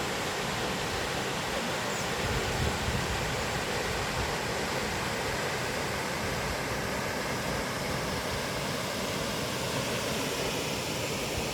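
Waterfall: a steady, unbroken rush of falling water, with a brief low rumble about two seconds in.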